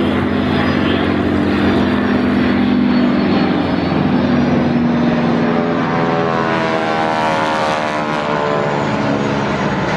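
Propeller aeroplane engine running steadily as it flies by. Its pitch falls through the second half as the aircraft passes.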